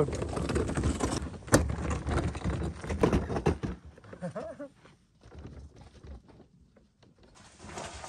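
Setpower portable fridge being rolled on its wheels over rocky dirt, its wheels and metal frame rattling for about four seconds, then much quieter with only scattered faint clicks.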